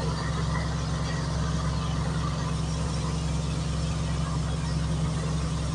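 Semi-truck's diesel engine running steadily at low revs, a constant low hum heard from the cab.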